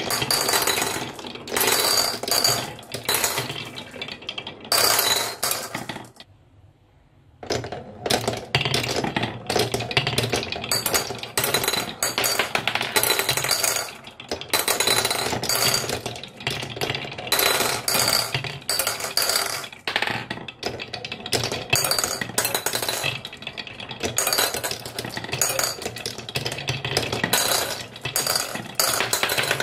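Glass marbles rolling and clattering along wooden marble-run tracks, with quick clicks and clinks as they hit the track edges and each other. The sound breaks off briefly about six seconds in, then carries on.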